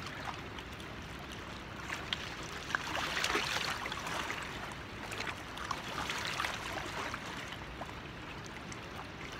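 Steady wash of river water moving along a rocky bank, swelling slightly a few seconds in, with a few faint clicks.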